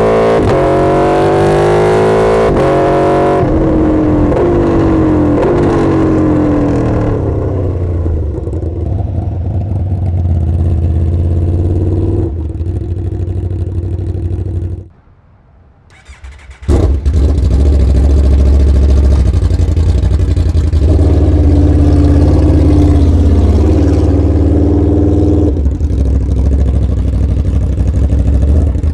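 2022 Aprilia RSV4 1100 V4 engine through an SC-Project GP-22 exhaust, accelerating with its pitch climbing through the gears for the first few seconds, then running at a steady speed. About halfway through the sound cuts out for a couple of seconds, then the steady engine note comes back.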